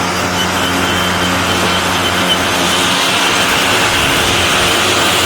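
EGO POWER+ cordless self-propelled electric lawn mower running steadily while mowing grass, its motor and blade making an even whir.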